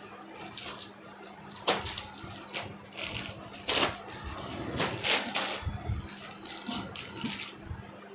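Cotton saree fabric rustling in several irregular swishes as it is handled and spread out flat, over a faint steady hum.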